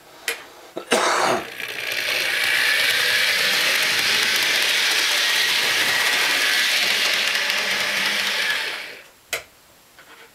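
Model train locomotive running along the track with its cars: the steady whir and rattle of its electric motor and wheels on the rails, with no added sound effects. The whir stops about nine seconds in, followed by a single click. A short rasping noise comes about a second in.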